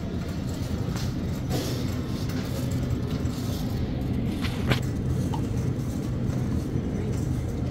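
Steady low hum and rumble of store background noise along refrigerated display shelves, with one sharp click about four and a half seconds in.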